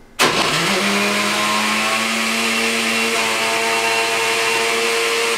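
Countertop blender switched on and running steadily at full speed, its motor pitch climbing briefly as it spins up and then holding level while it purees a thick mix of grapes, bread, cheese, turkey, egg and Gatorade. It stops right at the end.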